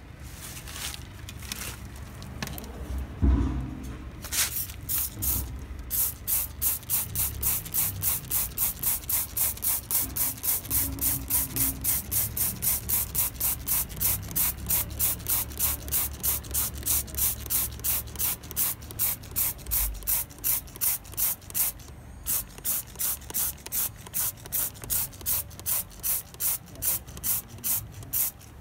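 Stiff brush scrubbing degreaser into gummy machine oil on a machine surface: even back-and-forth hissing strokes, about three a second, with a short break about three-quarters of the way through. A low thump about three seconds in.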